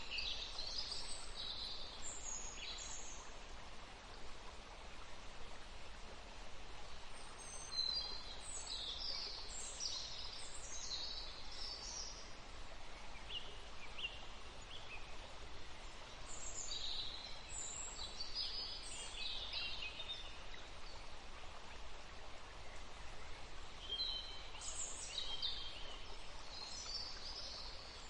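Forest ambience: groups of short, high bird chirps come and go several times over a steady background hiss.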